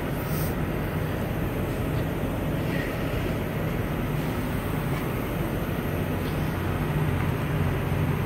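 Steady low hum and rushing noise as gasoline drains by gravity from a tanker trailer compartment through its drop hoses into an underground storage tank.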